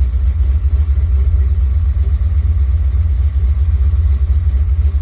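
Car engine idling steadily, a low rumble with a slight pulse.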